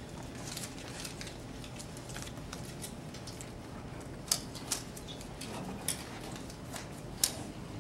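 Paper slips being handled and sorted: light rustling and shuffling, with a few sharp clicks or taps, the loudest about four and a half and seven seconds in.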